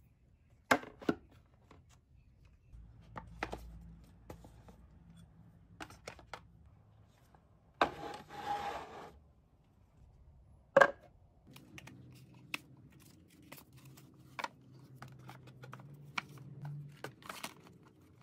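Plastic storage bins and desk items being handled on a laminate desk shelf: scattered light clicks and knocks, with sharper knocks about a second in and near eleven seconds, and a brief rustle about eight seconds in.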